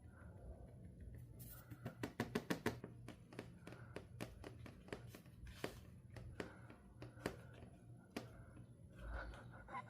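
Soft, scattered taps and clicks, with a quick run of them about two seconds in.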